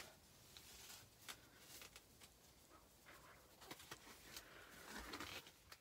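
Near silence: faint room tone with a few soft ticks and light rustles.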